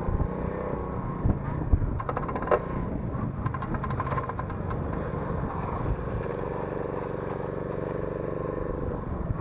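Lifan 50 moped's 50 cc engine running, with the drive chain clattering in a run of rapid knocks from about two to four and a half seconds in. With no chain guard fitted, the chain is slapping against the fender.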